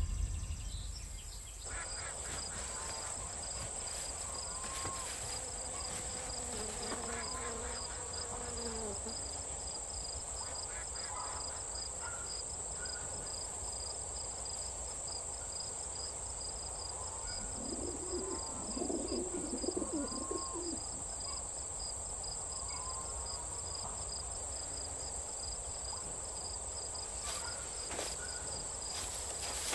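Quiet countryside ambience: a steady high insect trilling, scattered bird chirps, and low cooing calls about seven seconds in and again near twenty seconds.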